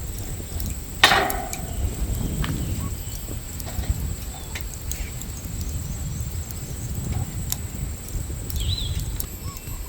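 A single sharp knock with a short ring about a second in, then scattered light clicks and taps over a steady low rumble like wind. A short bird chirp comes near the end.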